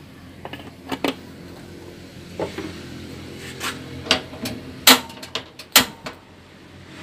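A dozen or so sharp, irregular clicks and knocks from a gas stove's control knob being turned to light the burner under a wok of oil, the loudest a little under five and six seconds in.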